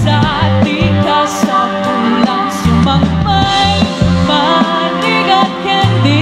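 Pop song played loud, with a woman singing a wavering melody over a band's bass notes and drums.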